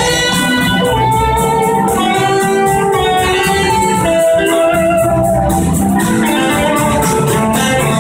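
A band playing live: electric guitars over drums, with a horn section, in a continuous loud passage of held notes and a steady beat.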